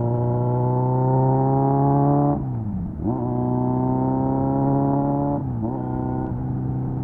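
Kawasaki Z900's 948cc inline-four engine through an SC Project exhaust, pulling under throttle with the revs climbing steadily. About two and a half seconds in the revs drop sharply and climb back. The same happens again a little over five seconds in.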